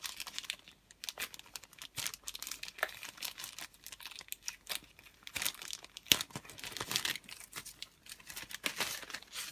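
Thin clear plastic bag crinkling and tearing as fingers pick at the seal and pull it open: a dense run of irregular crackles.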